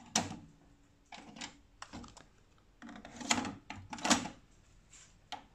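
Plastic clicks and clacks of a Technics RS-TR252 double cassette deck worked by hand: a cassette door snapped shut, a cassette tape handled and loaded into the second deck, and that door pushed closed. The sharpest clacks come just after the start and about four seconds in.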